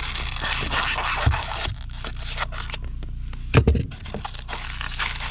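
Cured spray foam insulation being cut and scraped away from a wall gap at the floor: rough, continuous scraping for the first second and a half, then shorter scraping strokes, with one louder knock about three and a half seconds in.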